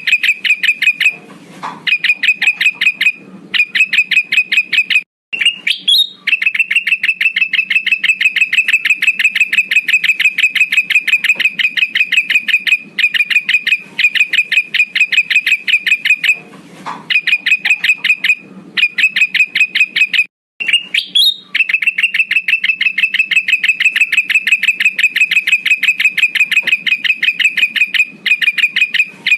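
Male kutilang emas bulbul calling in fast, even runs of short high chirps, broken by brief pauses. It is a lure recording that repeats itself about every 15 seconds.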